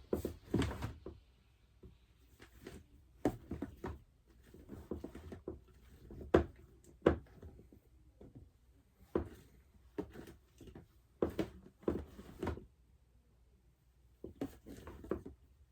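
Fidget toys being rummaged through and set down, making irregular light clicks and knocks with short pauses between them.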